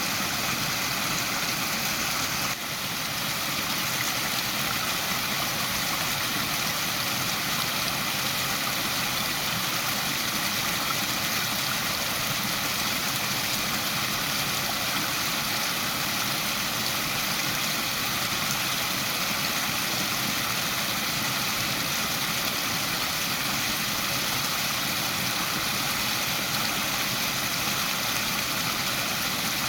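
Waterfall: a steady, even rush of falling water, dipping slightly for a moment about two and a half seconds in.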